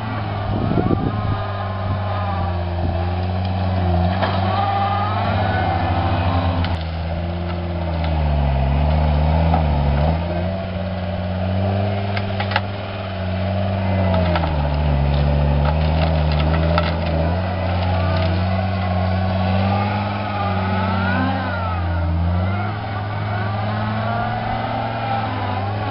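John Deere compact track loader's diesel engine running under heavy load, its pitch dipping as it lugs and then recovering, with a hydraulic whine rising and falling as the tree puller and grapple work. A cluster of sharp cracks about halfway through.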